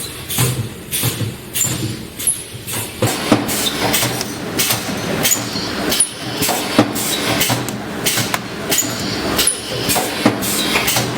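Wire mesh spot welding machine running through its cycle: a steady run of metallic clanks and knocks, about two a second, over a constant mechanical noise.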